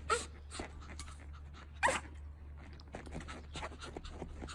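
Pomeranian panting in quick, short breaths, with two brief high yips: one at the very start and one about two seconds in.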